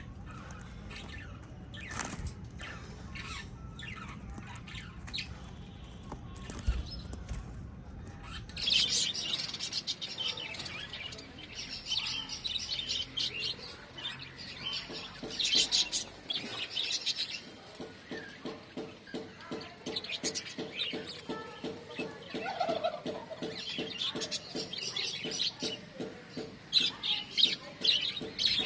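Small caged parrots, lovebirds and budgies, chirping in repeated high bouts that start about a third of the way in. Before that there is a low rumble with scattered clicks, and a fast, regular ticking runs through the second half.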